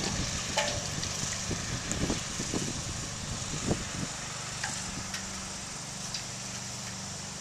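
A steady low engine-like hum, fading somewhat about halfway through, with a few short, sharp yips from puppies at play.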